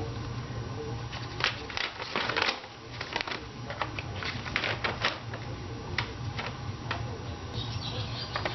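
Paper and packaging being handled, with irregular crinkling and rustling, over a steady low hum, as the instruction sheet for the new carburetor is taken out and unfolded.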